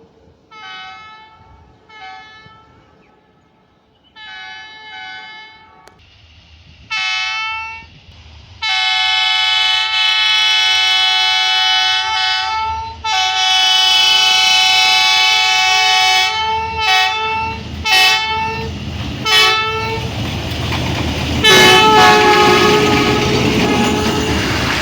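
Train horn sounding repeatedly over a train's rumble. A few faint short toots come first, then loud long blasts, a run of short toots and a last long blast. The rumble starts about six seconds in and grows louder near the end.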